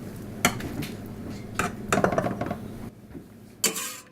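Dishes and utensils handled on a kitchen counter: a handful of separate knocks and clinks, with a short noisy clatter near the end.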